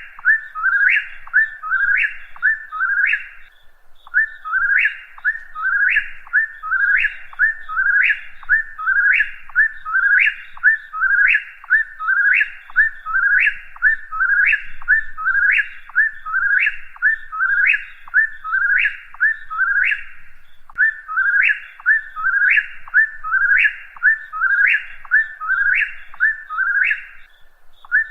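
Whip-poor-will singing its three-note "whip-poor-will" phrase over and over, about once a second, each phrase ending in a quick upward sweep, with brief pauses about 4 seconds in, near the middle, and near the end.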